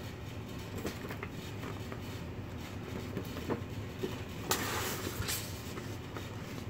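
Paper rustling and crackling as a fold-out instruction manual is handled and opened out, with a louder crinkle about four and a half seconds in. Under it runs a steady low hum.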